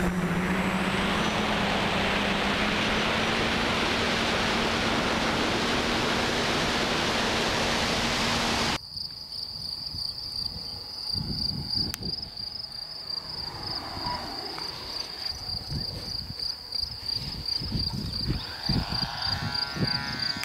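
Steady rushing noise with a low hum that cuts off suddenly about nine seconds in. After that, wind buffets the microphone in gusts over a steady high insect trill, and the faint whine of the electric model plane's motor passes by twice, its pitch sliding down and back up.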